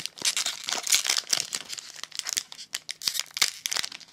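Foil wrapper of a Pokémon trading card booster pack crinkling and crackling in irregular small snaps as fingers pick at it and tear it open.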